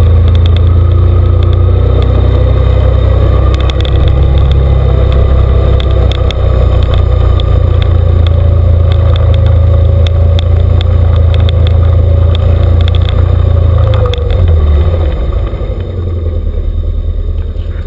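Off-road vehicle engine running steadily under way, with heavy low rumble on the microphone, easing off and quieter from about fourteen seconds in as it slows.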